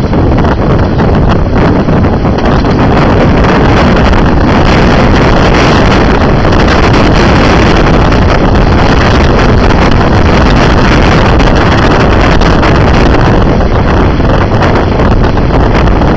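Loud, steady wind buffeting on the microphone over the running noise of a Konstal 803N tram travelling along its track.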